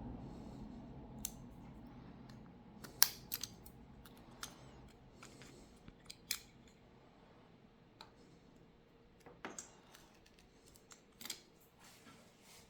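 Scattered light clicks and taps of small repair tools and parts on a smartphone being worked on. The sharpest click comes about three seconds in.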